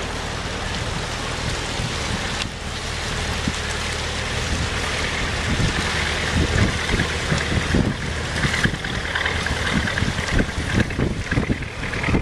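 Engine of a small fishing boat running steadily at low speed as it motors past, with water washing from its hull. Wind buffets the microphone in irregular gusts, more so in the second half.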